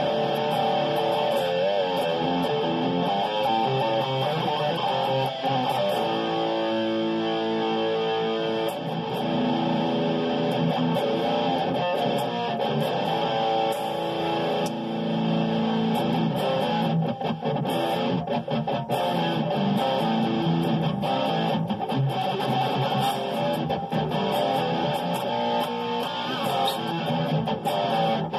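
Seven-string electric guitar, a hybrid Schecter Damien Elite 7 in an ML-style body, played without a break: fretted chords and changing notes ring on into each other.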